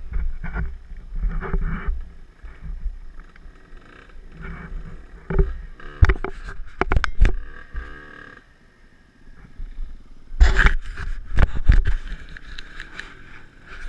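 Rumble and buffeting on a helmet-camera microphone as a dirt bike makes its way down a rough dirt trail, with repeated knocks and scrapes. It goes quieter for a moment, then a burst of loud knocks comes about ten seconds in.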